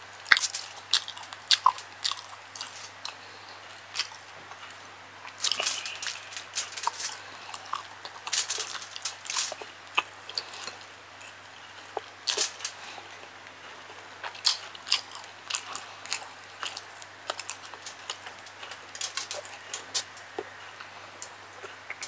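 Close-miked mukbang chewing of chicken gizzard and liver adobo with rice, eaten by hand: irregular bouts of wet chewing and crunching, with pauses between mouthfuls. A faint steady low hum runs underneath.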